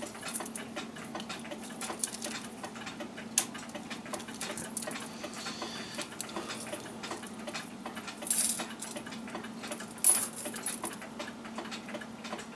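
Light metallic clicks and rustles as a coiled steel clock mainspring and its brass great wheel are picked up and handled, with a louder metallic rattle about eight seconds in and a sharp clink about ten seconds in. A faint steady hum lies underneath.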